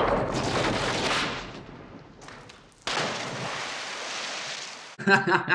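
Movie-soundtrack gunfire: a loud blast at the start that dies away over about two seconds, then a second sudden burst of noise about three seconds in that lasts about two seconds.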